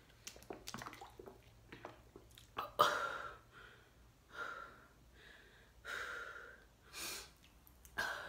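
A woman drinks from a plastic water bottle with small swallowing clicks. About three seconds in there is a sharp gasp, then several heavy breaths about a second apart, as she gets over the nausea from the sour vinegar drink.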